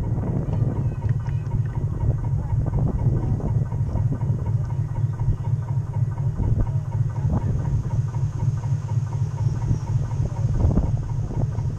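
A 1/12-scale radio-controlled model boat under way, heard from on board: a steady low rumble from its drive and hull on the water, with irregular small crackles over it.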